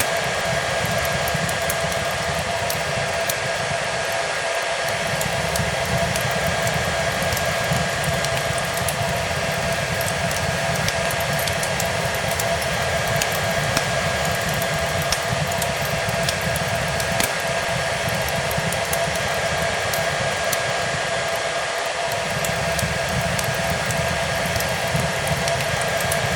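Hair dryer running steadily, a whooshing rush of air with a constant motor whine, mixed with a fireplace's small scattered crackles.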